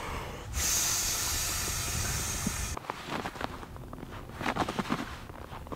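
A steady hiss for about the first two seconds. After that it is quieter, with a few soft crunching footsteps on snow-covered ice.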